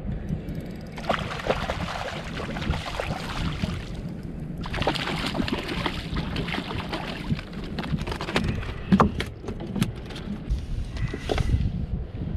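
Hooked speckled trout thrashing at the surface beside a kayak as it is brought in and landed by hand: two spells of water splashing full of sharp slaps, the second and longer one about five seconds in.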